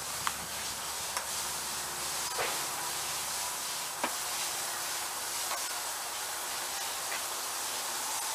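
Steady background hiss with a few faint, sharp clicks and taps scattered through it, about one every second or two.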